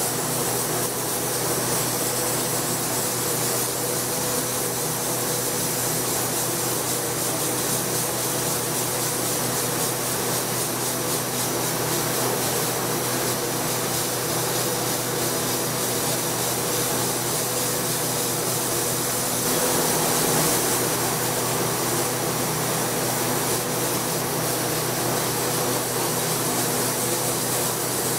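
Sandblaster nozzle blasting abrasive grit onto a glass panel inside a blast cabinet: a steady, unbroken hiss of air and grit with a low hum beneath. The blast is etching a frosted finish into the glass wherever the dried liquid resist does not cover it.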